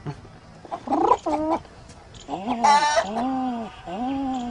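A man imitating a pigeon's cooing with his voice: throaty coos, two short rising ones about a second in, then a run of longer arched coos.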